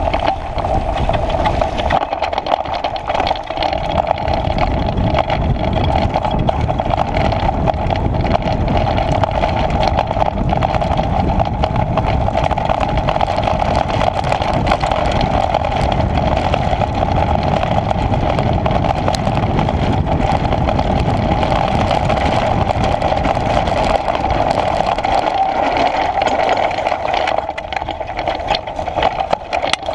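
Mountain bike ridden fast downhill over loose gravel and rocks, heard from a camera on the bike: a continuous rumble and rattle of the knobby tyres and frame, with wind on the microphone and a steady hum, easing briefly near the end.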